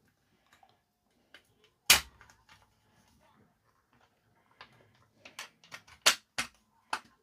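Plastic parts of a toy bubble gun clicking and knocking as they are handled and pushed together: one sharp snap about two seconds in, then a quick run of smaller clicks near the end.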